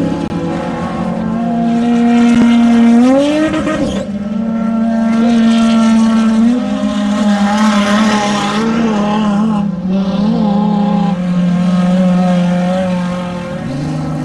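Off-road desert race vehicle engine running hard. Its pitch climbs about three seconds in, then holds and wavers up and down as the throttle changes, rising again near the end.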